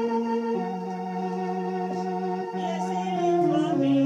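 Organ comes in suddenly with held chords that change a few times, opening the accompaniment to a hymn. About two and a half seconds in, voices begin singing over it.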